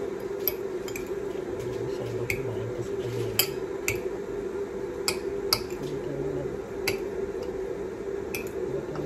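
Dishes and cutlery clinking: about nine sharp, light clicks at irregular intervals, over a steady hum.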